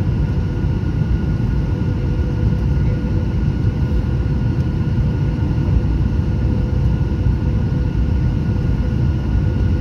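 Cabin noise of a Boeing 737-800 in flight, heard from a window seat beside its CFM56 jet engine: a steady low rumble with a constant hum running through it.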